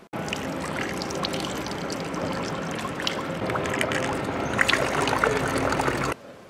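Water running from a public drinking fountain's brass spout and splashing onto stone paving, in a steady rush with many small crackles. It starts abruptly and cuts off suddenly near the end.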